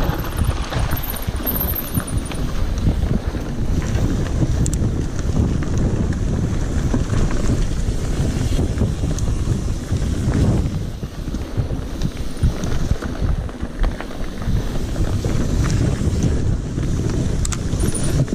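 Wind buffeting the microphone of a mountain bike's action camera at speed, over the rumble of knobby tyres rolling on a dirt trail, with many small knocks and rattles from the bike over rough ground.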